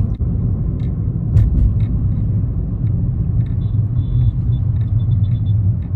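Low, steady rumble of a car's engine and tyres heard from inside the moving car's cabin, with a few light clicks.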